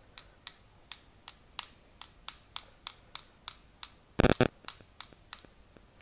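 Light metallic taps on a crocodile-clip pickup made with a thin metal tool, about three a second, with a louder double knock about four seconds in.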